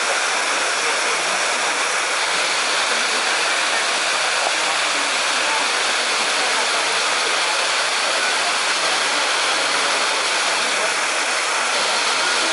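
Steady rushing hiss of running water, even and unbroken throughout.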